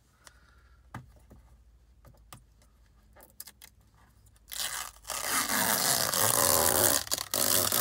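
Protective plastic film being peeled off a new car's instrument cluster. A few faint clicks, then about four and a half seconds in a much louder, continuous crinkling and tearing rustle of the plastic.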